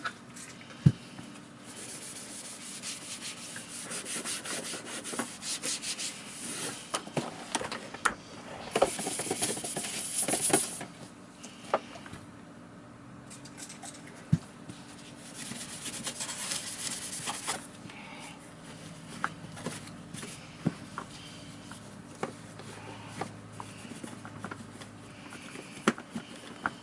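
Scrubbing and rubbing on a vacuum cleaner's parts during cleaning, in uneven stretches, with scattered sharp clicks and knocks as the parts are handled; the loudest click comes about a second in.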